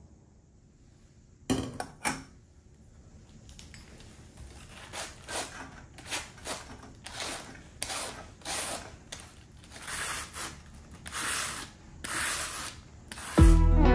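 Two sharp clicks of a steel bowl set on a metal counter, then cabbage being shredded with a hand slicer into the strainer bowl: a run of short slicing strokes, about two a second, slowly growing louder.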